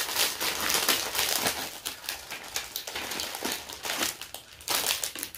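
Packaging crinkling and rustling as it is handled, in a run of irregular crackles.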